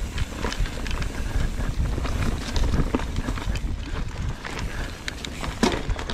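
Mountain bike rolling fast over a rough, rocky trail: a steady low rumble with many quick clicks and rattles from the tyres and bike, and one sharp knock near the end.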